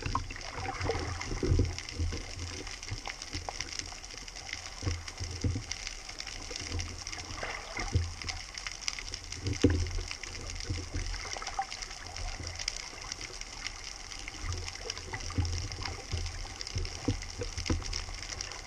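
Underwater sound through a camera's waterproof housing: water rushing and gurgling, with irregular low thumps and a few clicks.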